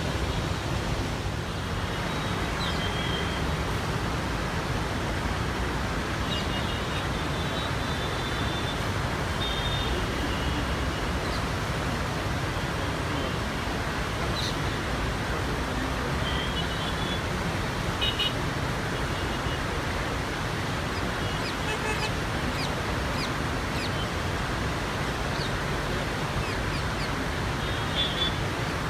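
Heavy floodwater rushing through the open gates of the Krishna barrage: a steady, unbroken rushing noise, with short high chirps or beeps here and there.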